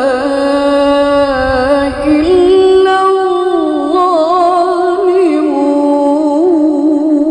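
A woman reciting the Quran in a slow, melodic style, holding long notes with ornamented turns. The pitch steps up about two seconds in and settles back down in the second half.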